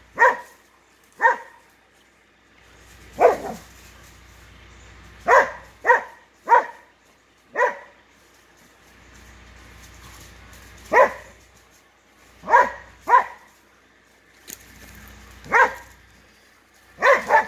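Blue Lacy dog barking at a raccoon it has cornered: about a dozen short, sharp barks, irregularly spaced, some coming in quick pairs.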